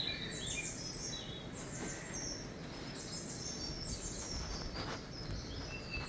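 Birdsong from a bird video playing through a TV's speakers: many short, high chirps and whistles, over a steady background hiss.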